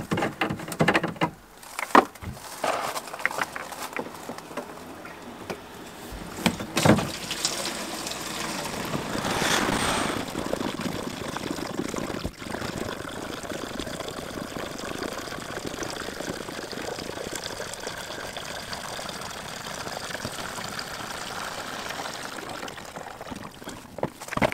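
Diesel being poured from a plastic jerry can through a spout hose into the heater's plastic fuel tank: a steady stream of liquid running in. Before the pour come a few seconds of scattered clicks and knocks as the tank cap and the can are handled.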